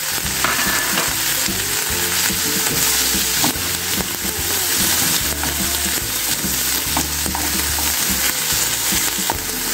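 Green peas, spinach and parsley sizzling in hot oil in a frying pan, stirred with a wooden spatula that scrapes and taps against the pan.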